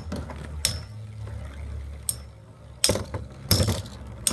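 Two Metal Fight Beyblade tops, Capricorne and Virgo, spinning in a plastic stadium and striking each other in a run of sharp metallic clinks, the loudest about three seconds in.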